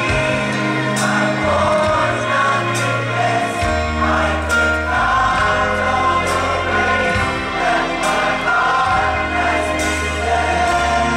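Church choir singing a worship song in many voices, backed by a live band with a bass line of held notes that change every second or two and light percussion.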